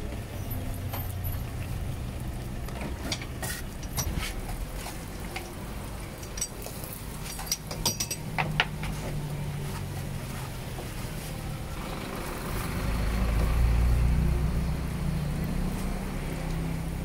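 Street traffic: a steady low engine rumble, with a motor vehicle passing that swells louder about twelve seconds in and then eases off. Scattered sharp knocks and clicks come through the middle.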